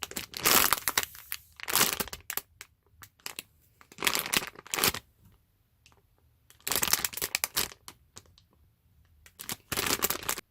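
Crinkly plastic squishy packaging being handled and opened, in about five short bursts of rustling with quiet gaps between.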